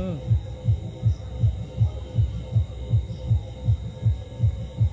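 An insect calling from the mouth of its burrow in the soil at night: a low throbbing pulse repeated steadily, about three times a second.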